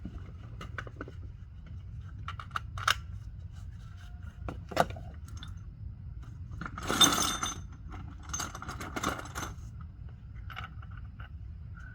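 Metal hand tools and parts clinking, scraping and rattling as they are handled, with scattered sharp clinks and the loudest jangling rattle about seven seconds in, over a steady low hum.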